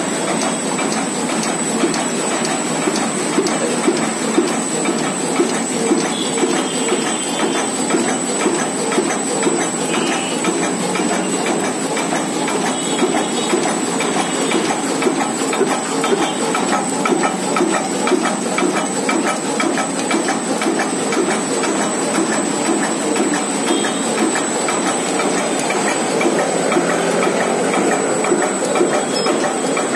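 High-speed pouch making machine running, a steady mechanical clatter of rapid rhythmic clicking, with a thin steady high-pitched tone above it.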